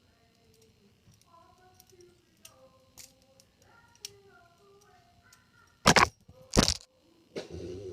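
Two loud, sharp cracks about two-thirds of a second apart, a little before the end, after several seconds of faint murmuring voices.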